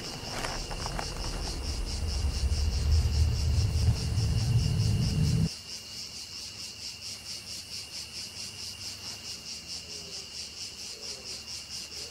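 Crickets chirping steadily in a fast, pulsing trill. Under them a low rumble swells over the first five seconds or so and cuts off suddenly, leaving the crickets alone.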